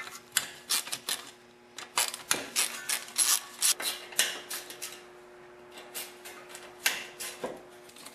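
Hand ratchet and socket clicking in quick runs while loosening the 3/8 in sump cover bolts on a 5 hp Briggs & Stratton engine, with a short pause about five seconds in. A faint steady hum sits underneath.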